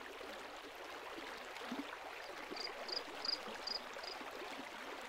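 Faint flowing-stream ambience, with a run of five short high chirps about two and a half seconds in, roughly three a second.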